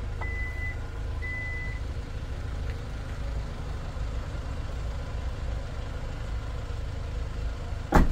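Power tailgate of a 2018 Kia Carnival closing: two short warning beeps as it starts down, then a steady low hum while it lowers, ending in a loud thump near the end as it latches shut.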